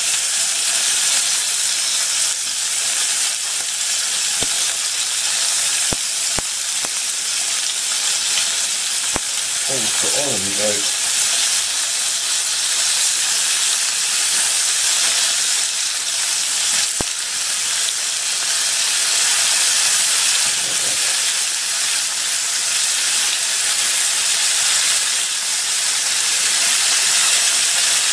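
Strips of steak sizzling in hot oil in a wok over a gas flame, a steady frying hiss. A few sharp clicks sound over it.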